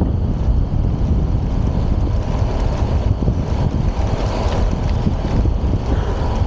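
Wind rushing over the camera's microphone while riding a bicycle at speed, a loud, steady low rumble.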